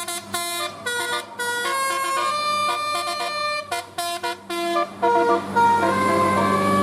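Bus telolet basuri multi-tone air horn playing a quick melody of changing notes, over a running bus engine. About five seconds in, the sound gets louder and noisier, with a few longer held horn tones.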